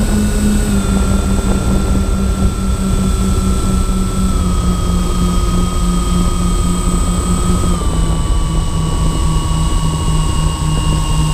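Motors and propellers of a MyTwinDream twin-motor FPV plane running steadily, heard from on board with wind rush beneath; the drone steps down slightly in pitch three times, about one, four and eight seconds in, with a thin constant high whine above.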